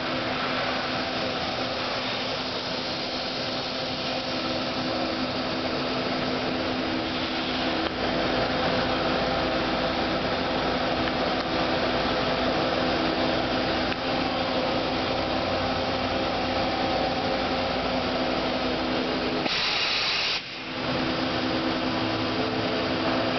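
1997 Mazak Super Quick Turn 15S Mark II CNC turning center running under power: a steady mechanical hum with a whine. The low rumble grows about 8 seconds in, and a short hiss comes near the end just before a brief dip in the sound.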